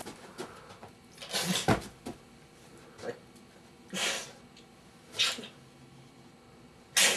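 A man sobbing into his hands: a series of sharp, gasping breaths a second or so apart.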